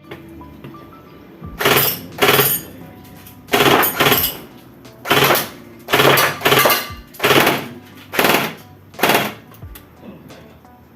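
Tokyo Marui Thompson submachine gun AEG (automatic electric airsoft gun) firing about ten short full-auto bursts, each about half a second long and roughly a second apart.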